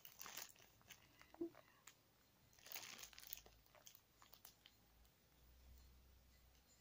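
Faint crinkling of clear plastic bags as squishy toys are handled in their wrappers: a few soft scattered rustles and clicks, the densest about three seconds in.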